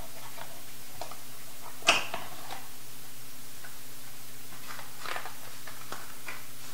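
Cardboard handling: hands lifting a cardboard insert tray out of a smartphone box. Scattered soft taps and scrapes, with one sharper tap about two seconds in, over a faint steady low hum.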